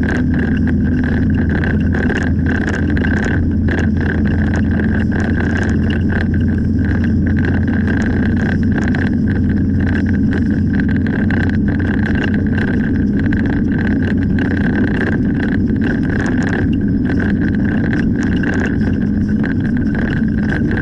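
Steady engine and tyre noise inside a moving car, picked up by a windscreen-mounted dashcam, with a steady high whine and frequent small clicks or rattles over it.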